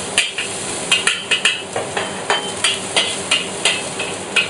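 Metal spatula scraping and knocking against a wok, about two or three strokes a second, as ginger and garlic are stir-fried in hot oil, with a steady sizzle underneath.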